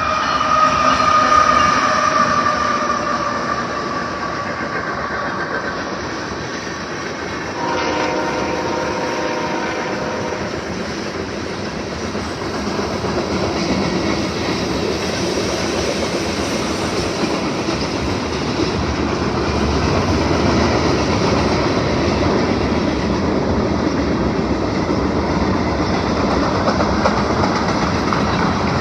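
A train passing close by. The tail of a horn chord fades over the first few seconds, another short multi-note horn blast sounds about 8 s in, and then the steady rumble and clickety-clack of the cars rolling past takes over.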